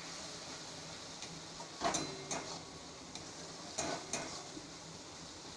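Metal spatula scraping and clanking against a steel wok while a spice paste fries with a steady sizzle; a few sharp clanks come about two and four seconds in.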